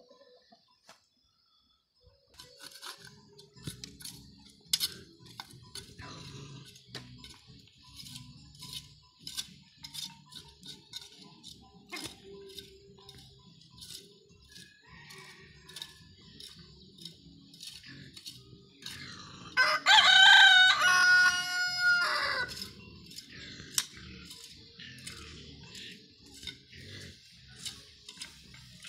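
A rooster crows once, a loud call of about three seconds past the middle. Around it a small hand hoe chops and scrapes through dry, crumbly soil, making frequent short clicks.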